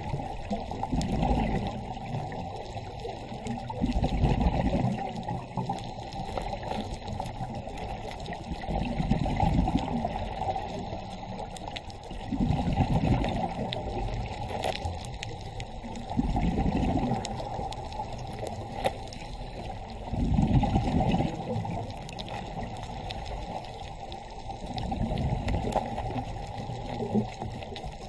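Muffled underwater water noise, with a low gurgling swell about every four seconds.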